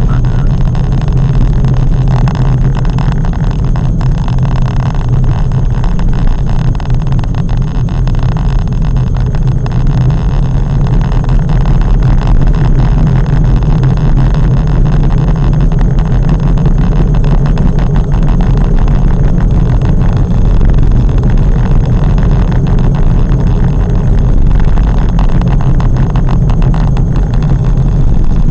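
Steady, loud low rumble of a car's engine and tyres on the road, heard from inside the cabin while driving in city traffic.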